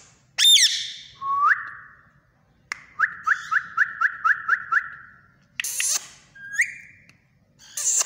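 Indian ringneck parakeet whistling and calling. Sharp calls and rising whistles are broken by a quick run of about eight short rising whistled notes in the middle.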